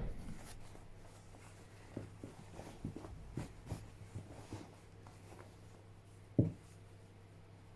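Denim and cotton fabric being handled and folded on a tabletop: soft scattered rustling and brushing, with one short thump about six and a half seconds in, over a low steady hum.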